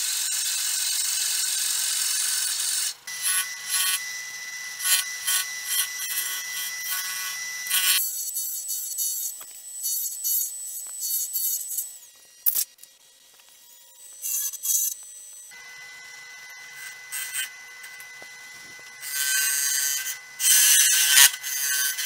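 Drill bit in a wood lathe's tailstock chuck boring into a spinning wood blank: a loud steady hiss for about three seconds, then choppy as the bit is fed in and backed out. Later the lathe runs with a steady whine and a sharp click, and near the end a hollowing tool cuts the inside of the blank with loud scraping.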